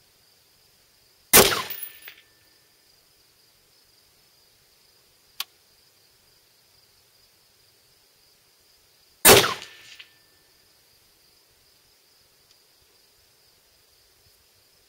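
Two shots from a Bushmaster Varminter AR-15 rifle firing 5.56mm XM193 55-grain ammunition, about eight seconds apart, each trailing off in a short echo. A single sharp click comes between them, over a faint steady high insect buzz.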